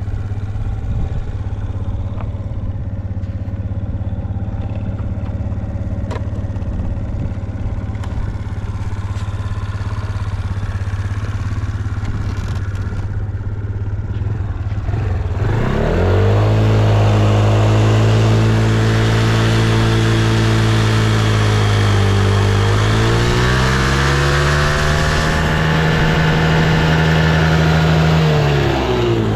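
Suzuki Let's 4 scooter's 50cc four-stroke single-cylinder engine idling steadily, then revved up about halfway through, held, raised higher still, and dropped back to idle at the end. It revs up cleanly with no abnormal noise, its recall repair done.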